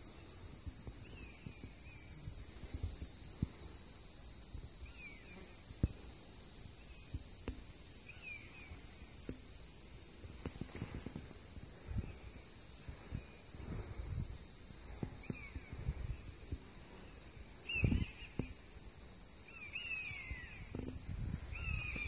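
Summer meadow ambience: a steady high shrilling of insects, with a bird giving short descending calls every few seconds and low wind rumbles on the microphone.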